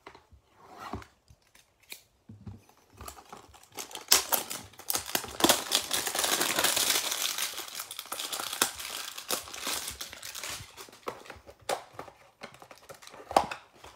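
A Panini Playoff football-card hanger box is torn open and its wrapped pack is crinkled as it is worked out of the box. Scattered clicks and rustles come first, then a dense crinkling from about four seconds in to about ten seconds, and a few more sharp crackles near the end.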